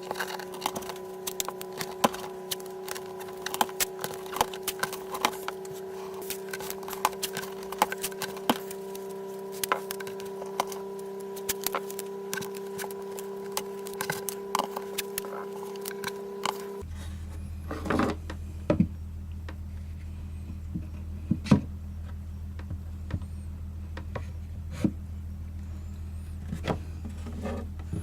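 Clamps and a caul being fitted to an acoustic guitar body during a glue-up: frequent light clicks and wooden knocks over a steady hum. About 17 seconds in, the hum drops to a lower one.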